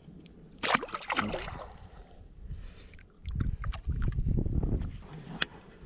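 Water splashing and sloshing at the pond's edge about a second in, then the low rumble of wind buffeting the microphone and a sharp click near the end.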